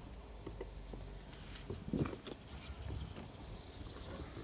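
Insects chirring in a high, fast-pulsing band, with a few soft low knocks, the strongest about two seconds in.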